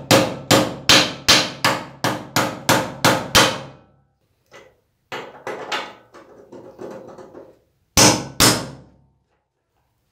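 Hammer blows on metal, driving a new steering-head bearing cup into a motorcycle's head tube: a quick run of ringing strikes, about three a second, then lighter taps, and two hard blows near the end.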